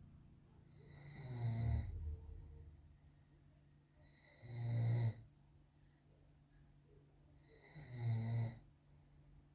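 A man snoring in his sleep: three snores, evenly spaced about three and a half seconds apart.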